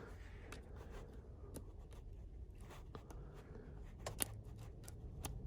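Faint small clicks and scrapes of a dimple pick and tension wrench working in a bike dimple lock's cylinder, with one sharper click about four seconds in, over a faint low rumble.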